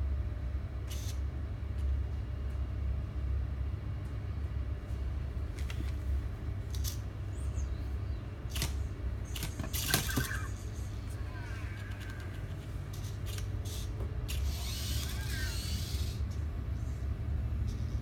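Steady low hum with scattered small clicks. About ten seconds in, an Anki Cozmo toy robot wakes up on its charger: a sharp click, then short chirping electronic glides, and later a brief hissy burst with more chirps.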